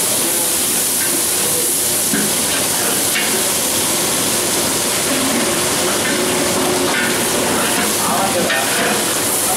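Sliced onions and curry leaves sizzling in hot oil in a large aluminium pot, stirred with a long metal ladle. The sizzle is steady.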